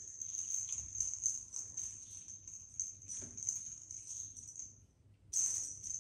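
Small jingle bell on a cat wand toy jingling as the toy is shaken, with a short pause about five seconds in.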